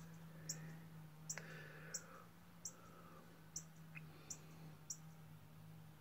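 Northern cardinal giving faint, sharp chip calls, a little more than one a second, over a steady low hum.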